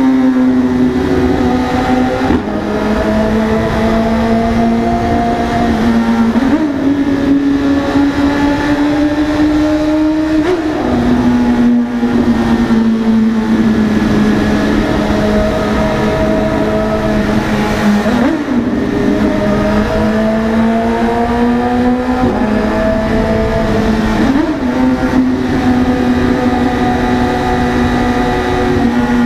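BMW S1000RR's inline-four engine running hard at high revs. Its note holds steady and climbs slowly, with a short jump and drop in pitch about five times.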